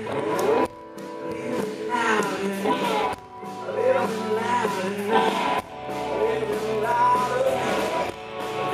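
Live country-rock band playing a song, with a singer's voice over guitar and bass.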